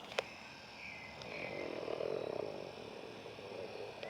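Faint outdoor ambience with birds calling in nearby trees, including a short chirping call about a second and a half in. A single sharp click comes just after the start.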